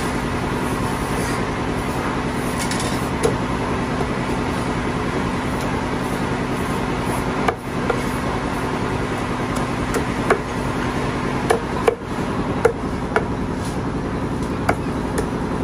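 Butcher's cleaver chopping chicken on a thick wooden chopping block: about ten sharp chops at irregular intervals, most of them in the second half. A steady hum runs underneath.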